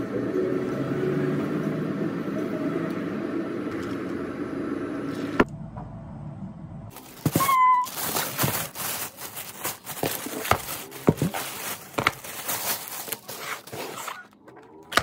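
Steady background murmur and hum of a busy café for about five seconds, then an abrupt change to a thin plastic carrier bag rustling and crinkling irregularly as a takeout box is pulled out of it, ending with a cardboard box being handled.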